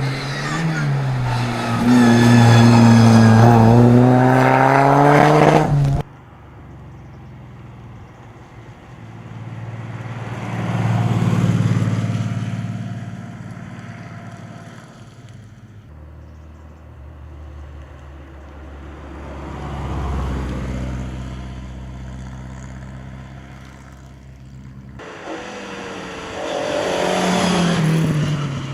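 Classic rally car engines: a loud, close engine revving with its pitch rising and falling, cutting off suddenly about six seconds in; then quieter cars passing twice, each swelling and fading; and a loud close engine again near the end.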